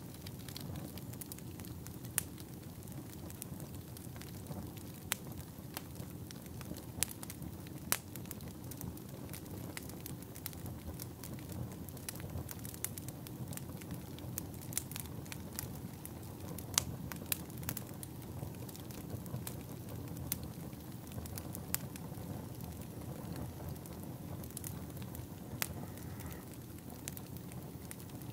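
Fire crackling, with irregular sharp pops and snaps over a low, steady rumble.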